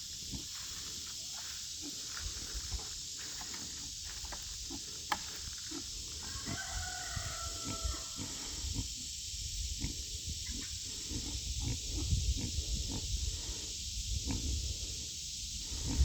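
Pigs drinking and grunting at a water trough: many short low slurps and knocks, coming thicker and louder in the second half, with a brief high whine about seven seconds in.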